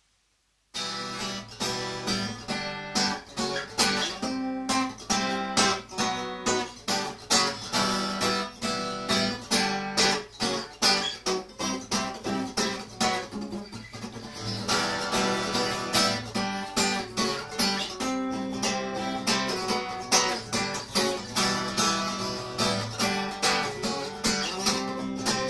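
Acoustic guitar playing the instrumental intro to a song: chords strummed in a steady rhythm, starting just under a second in.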